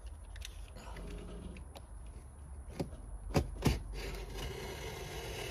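A blade cutting and scraping through a large cardboard box, with scattered small clicks and rustles. Two sharper knocks come a little past halfway.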